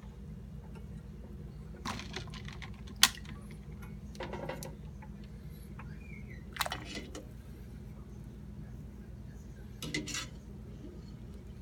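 Pot and kitchen utensils knocking and clinking about five times, the sharpest about three seconds in, over a steady low hum.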